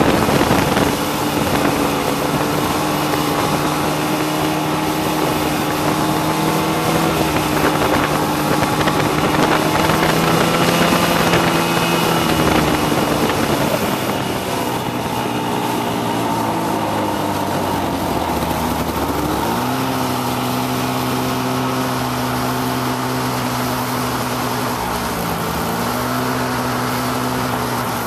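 Snowmobile engine running along a snowy trail. The engine note falls off about halfway through, then holds steady at a lower pitch for the last third, as at a slow idle.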